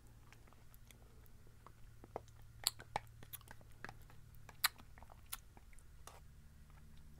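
Close-miked mouth clicks and smacks of someone eating spoonfuls of yogurt, scattered and irregular, the sharpest about two and a half and four and a half seconds in, over a low steady hum.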